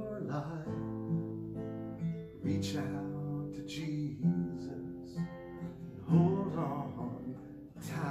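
Steel-string acoustic guitar strummed, with a man singing over it.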